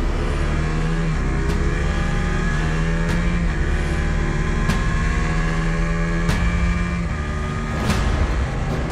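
KTM RC 200 motorcycle engine accelerating hard, its pitch rising steadily as it revs through the gears. Over it, a sharp hit sounds about every second and a half.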